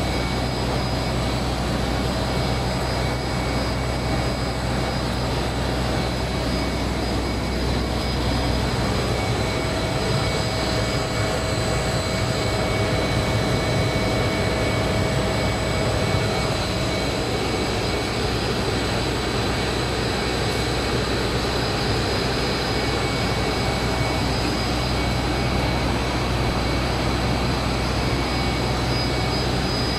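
45 mm monolayer plastic film blowing machine running in production: a steady rush of air and machinery hum, with several steady high whining tones over it.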